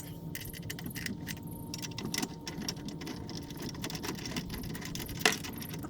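Metal parts of a steel umbrella base clicking and clattering as they are handled and bolted together: a run of small irregular clicks and knocks, with one louder knock about five seconds in.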